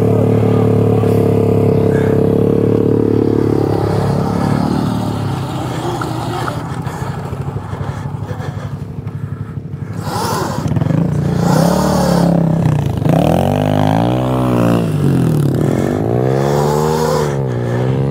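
Gas dirt bike engines: a steady engine note for the first few seconds that drops away about four seconds in. From about ten seconds in, an engine revs up and down over and over as the bike rides through loose sand.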